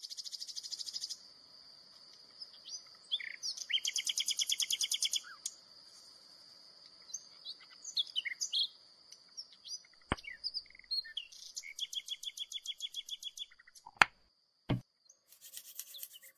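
Birds chirping, with repeated high, rapid trills about a second long, over a thin steady high whine. Three sharp knocks come near the end.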